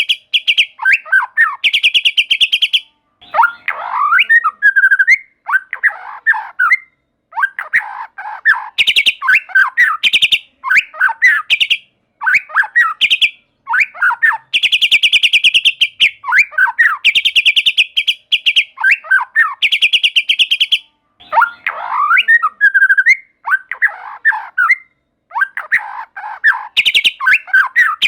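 White-rumped shama singing: phrases a second or two long, separated by short pauses. Fast, dry rattling trills alternate with swooping, warbled whistles.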